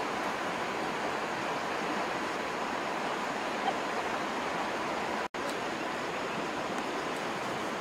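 Steady rushing noise with no distinct events, cutting out to silence for an instant about five seconds in.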